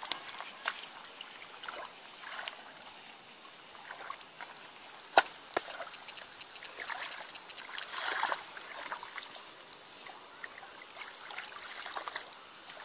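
Hands groping through wet mud and shallow water: scattered small sloshes, squelches and crackles, with one sharp click about five seconds in.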